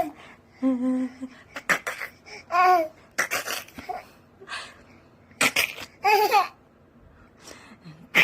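A baby of about seven months babbling and making short, laughing vocal sounds: about seven separate bursts with pauses between them, some pitched and wavering, some breathy.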